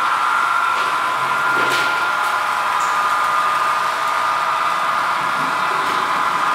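A small electric motor whirring steadily with a high hum.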